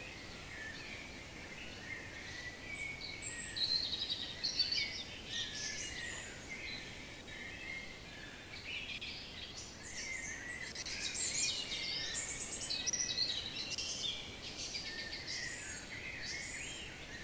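Several songbirds singing at once: a chorus of overlapping high chirps and trills that keeps going without a break and grows busier in the second half.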